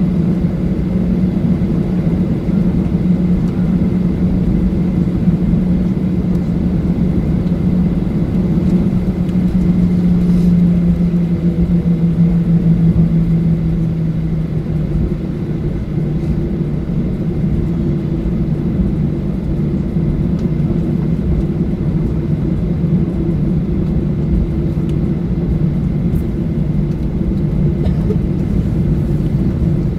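Boeing 737-800's CFM56 turbofan engines heard from inside the cabin: a loud, steady rumble with a low hum that drops a little in pitch about halfway through.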